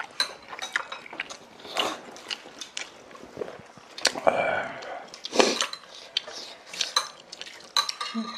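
Eating sounds at a meal table: utensils clicking and clinking against bowls and dishes many times, with wet slurping of noodles and soup.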